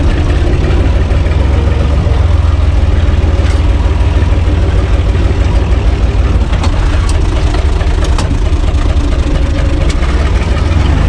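UTB U445 tractor's four-cylinder diesel engine running steadily, heard from inside the cab as a loud, even low hum. A few light clicks come through over it.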